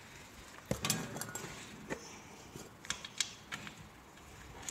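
Light metallic clicks and clinks, about six scattered over a few seconds, as a motorcycle engine's oil drain nut and its washer are handled and threaded back in by hand.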